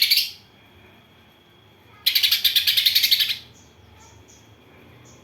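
Songbird chattering in a rapid, buzzy run of notes. One phrase ends just after the start, a second about a second and a half long begins about two seconds in, and a few short faint high chirps follow.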